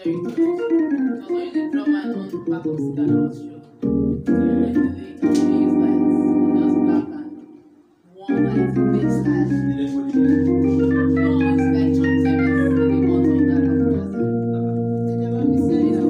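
Yamaha keyboard played with an organ sound: quick runs of notes at first, then long held chords, with a brief break about eight seconds in.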